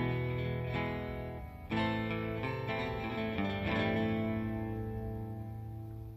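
Background music played on guitar, with plucked notes that start sharply and ring on. It grows softer toward the end.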